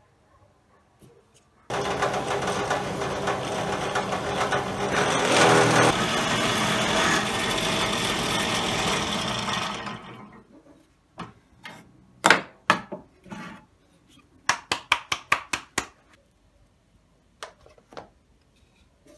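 An electric power tool runs on wood for about eight seconds, starting abruptly and winding down. Then come a scatter of sharp wooden knocks, including a quick run of about seven.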